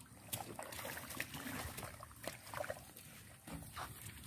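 Faint squelching and splashing of hands and feet working in the wet mud and shallow water of a flooded rice paddy, with scattered small clicks and dribbles.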